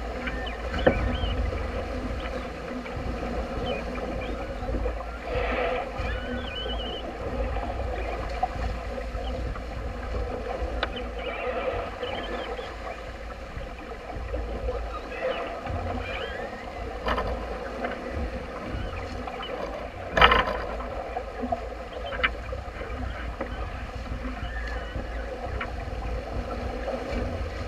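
Sailing yacht under way close-hauled and heeled: water rushing along the hull with wind buffeting the microphone. A few sharp knocks, the loudest about twenty seconds in.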